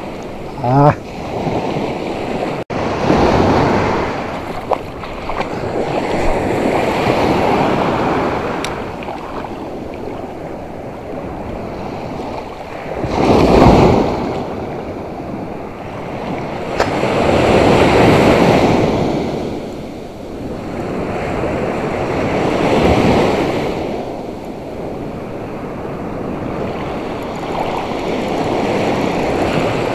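Sea surf on a sandy beach: waves breaking and washing up the sand, swelling and fading every four to five seconds, with the loudest surge about halfway through.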